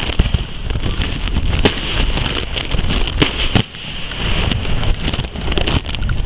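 Aerial fireworks going off: several sharp bangs, the strongest a little over 1.5 s and about 3 s in, over heavy wind buffeting on the microphone.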